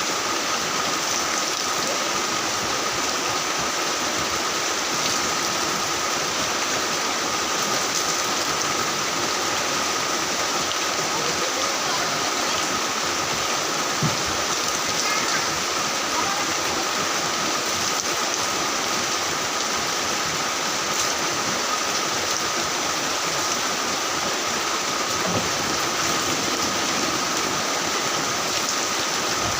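Heavy rain falling steadily as an even hiss, with one sharp louder drop or knock about fourteen seconds in.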